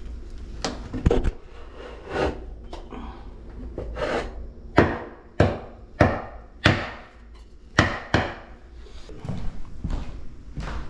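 A series of irregular knocks and thuds on wood, about a dozen sharp hits spread through the stretch, several coming about half a second apart in the middle.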